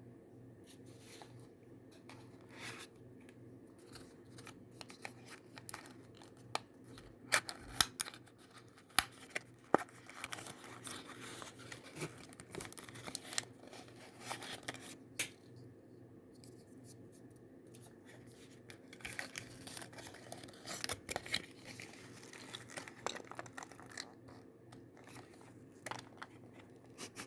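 Earbud packaging being cut and torn open by hand, with scratchy tearing, crinkling and irregular sharp clicks in bursts separated by quieter pauses.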